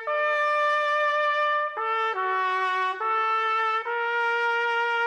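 Background music: a trumpet-led brass fanfare of long held notes. The notes change pitch every second or so, and the last is held from about four seconds in.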